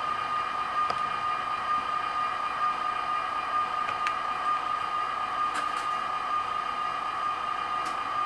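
HO scale model train of several Atlas Master Series EMD diesel locomotives running past on the track, with a steady high whine and a few faint clicks.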